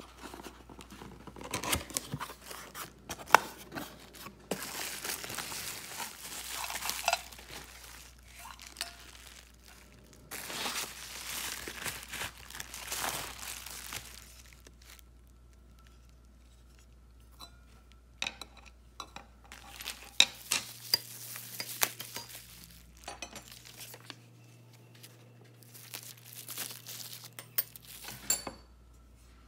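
Unboxing by hand: cardboard flaps and packing tape torn open and plastic wrapping rustled and crinkled in long stretches, then a run of separate clicks and clinks as black metal frame pieces and a stainless steel bowl are handled and set down on a stone countertop.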